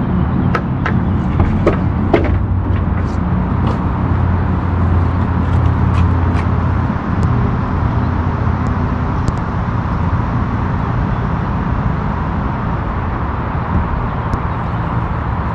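Steady low motor hum and rumble, with a few sharp clicks in the first three seconds.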